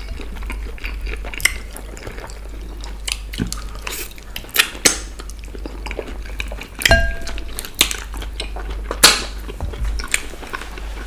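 Two people eating soup and fufu by hand from ceramic plates: wet, sticky scooping sounds, with scattered sharp clicks and taps of fingers and food against the plates, the loudest about nine seconds in.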